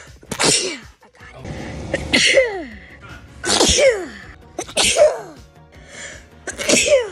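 A sneeze attack: a rapid run of about five sneezes, one every second or so. Each is a sharp burst whose pitch falls away.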